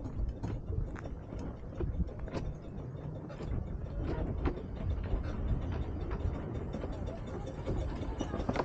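Double-headed miniature steam train on 12¼ inch gauge track running slowly toward and past the listener: a low rumble with many scattered sharp clicks and knocks.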